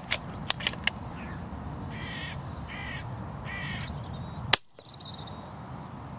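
Hooded crow cawing three times, then a single sharp shot from an FX Crown .22 PCP air rifle about four and a half seconds in: the follow-up shot into a crow already downed. A few light clicks in the first second.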